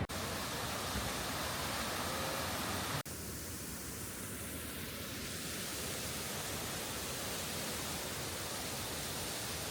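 Steady rush of flowing water from a city stream, broken by a sudden brief dropout about three seconds in.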